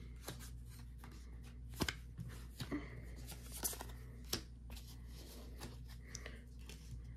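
Pokémon trading cards being handled and sorted: short soft clicks and rustles as cards are slid, flicked and set down on a playmat, over a low steady hum.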